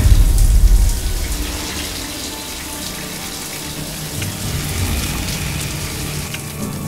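Water spraying steadily from a showerhead. A loud low rumble swells right at the start and dies away after about a second.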